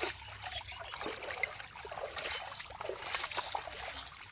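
Shallow river water splashing and sloshing as a person scoops it with a cloth and net and wades through it: a run of irregular splashes, the loudest right at the start.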